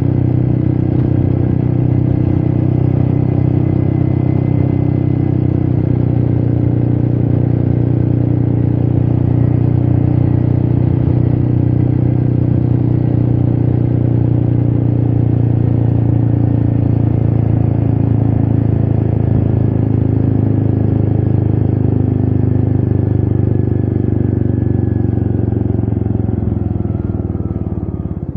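Royal Enfield Meteor 350's single-cylinder engine running steadily under way, with wind noise. Near the end the revs fall away and it gets quieter as the bike slows.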